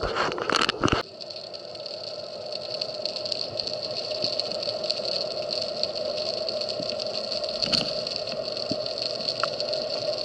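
Underwater noise picked up through a camera housing: a steady hiss with a hum. A loud rush of water lasts about a second at the start and cuts off suddenly.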